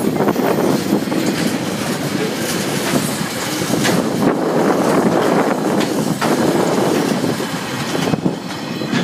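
Freight train's container wagons rolling past on the rail line, wheels clicking now and then, the tail end going by and the sound thinning near the end; wind buffets the microphone throughout.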